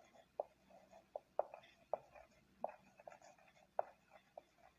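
Faint handwriting on a surface: about eight short taps at irregular spacing, with light scratching between them.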